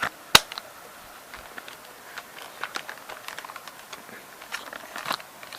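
Plastic clicks and taps from a Sony 8mm camcorder being handled: one sharp click just after the start, then a run of small, scattered clicks and rattles.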